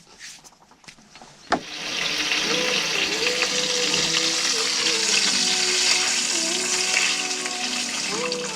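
Food hitting a hot pan with a sharp click and starting to sizzle, the frying quickly rising to a loud, steady hiss.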